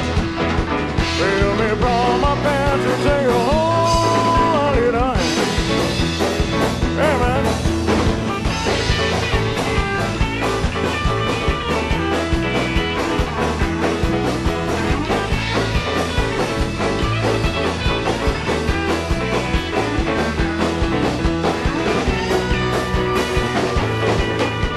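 Rock and roll band playing an instrumental stretch with a steady driving beat, the lead bending notes; near the end one note slides steeply down.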